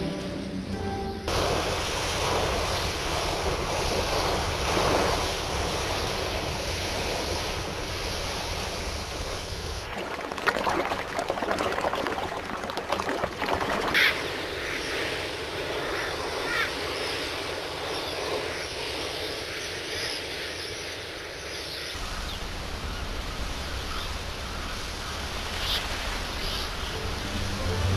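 Sea surf and waves rushing steadily, the ambience changing character a few times, with a few short gull calls around the middle.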